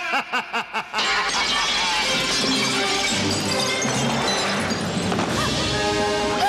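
A man's maniacal laugh in several quick bursts for about the first second, then glass from a skylight shattering and raining down under loud orchestral film music.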